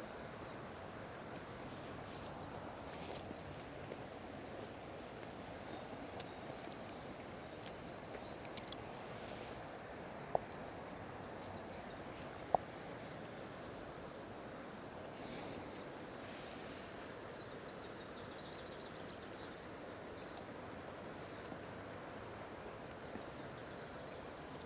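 A small songbird calling over and over, each phrase two or three quick high notes that sweep downward, against a steady low outdoor background rush. Two brief sharp ticks sound a couple of seconds apart near the middle.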